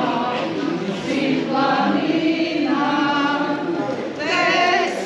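A choir singing, several voices holding long sustained notes, with a short break near the end before a higher phrase comes in.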